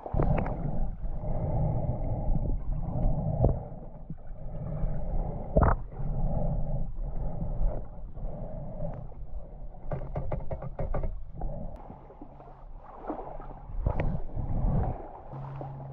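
Muffled water sloshing and splashing, with a sharp knock about six seconds in and a run of quick clicks around ten seconds in.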